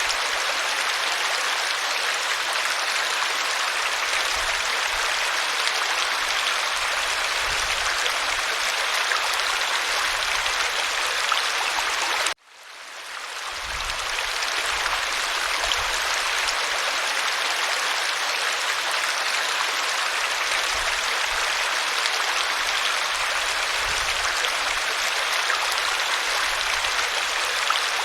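Waterfall: a steady, even rush of falling water. About twelve seconds in it cuts out suddenly and fades back in over a second or two, where the recording loops.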